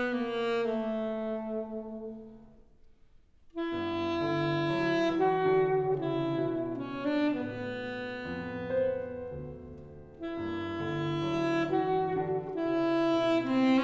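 Live chamber music from a small ensemble playing long held notes and chords, with wind instruments prominent. The sound dies away almost to silence about three seconds in, then the ensemble comes back in together on a new chord, with another brief lull near ten seconds.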